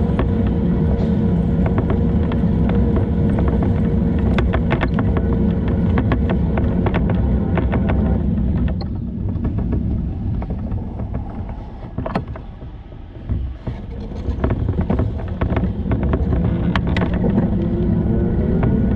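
Low rumble and rattling from riding a bicycle along a road, with sharp clicks as it goes over bumps. The rumble eases for a few seconds in the middle, and a steady hum rises in pitch near the end.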